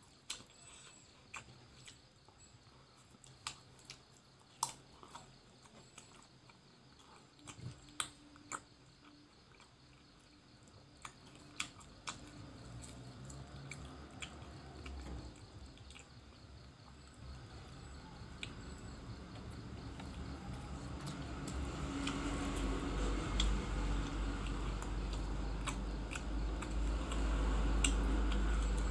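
Close-miked chewing and mouth sounds of someone eating rice and grilled fish by hand, with scattered sharp smacking clicks. The sound grows louder through the second half, with a low rumble underneath in the last several seconds.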